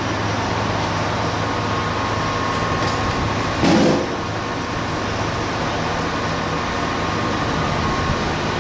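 Sandblasting: a steady hiss of air and abrasive over the hum of an air compressor, with one short, louder burst about four seconds in.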